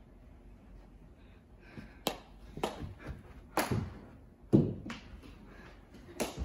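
Plastic mini hockey sticks and a small ball knocking during a knee-hockey rush: about six sharp clacks and slaps spread over the last four seconds, the loudest near the middle, after a quiet start.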